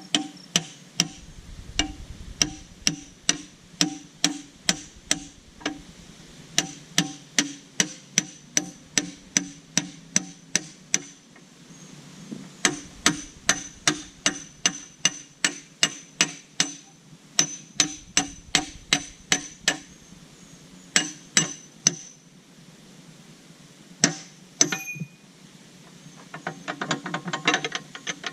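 Hammer blows on the steel of a backhoe bucket's linkage, about two a second, each leaving a short metallic ring. The blows come in runs with brief pauses between them.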